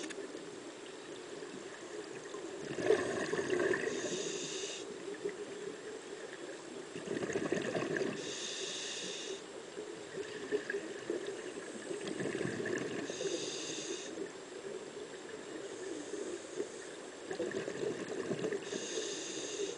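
Scuba diver breathing through a regulator underwater: exhaled bubbles and the hiss of the regulator on each breath, four breaths about five seconds apart.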